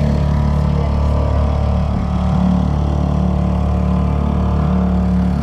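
Dinghy outboard motor running steadily under way.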